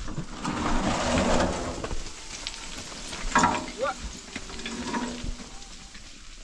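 Dirt and gravel tipped from a metal wheelbarrow, pouring and sliding down a stony slope. The rush is loudest in the first two seconds. A sharp clank comes about three seconds in, and lighter trickling follows.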